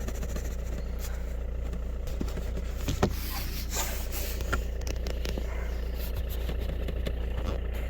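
Car engine idling steadily with a low, even hum, with a few light knocks and rubs around the middle as the loose heater pipe behind the dashboard is handled.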